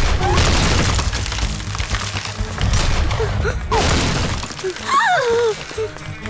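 Two blasts of film explosion sound effect about three seconds apart, each a loud burst of noise with a crashing, shattering edge, over background music. A wavering falling tone follows near the end.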